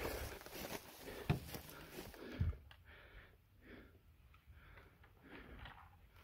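Faint rustling and handling noise: brushing and a couple of knocks in the first two seconds, then softer repeated rustles of clothing and tactical gear straps and pouches being handled.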